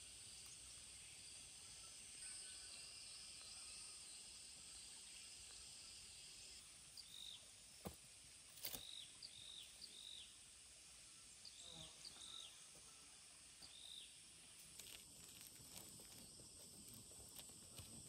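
Faint rural ambience: a steady high insect drone, with a bird giving a run of short, arched chirps through the middle stretch. A few sharp clicks and light rustles of movement come in between.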